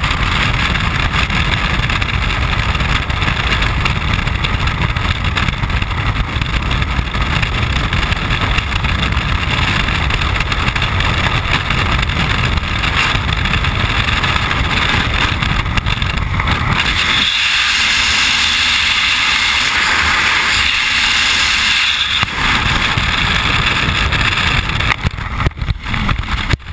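Freefall wind rushing hard over the helmet-camera microphone during a skydive, a steady loud buffeting roar. For several seconds past the middle it turns thinner and hissier. Near the end it breaks up and falls away as the parachute opens.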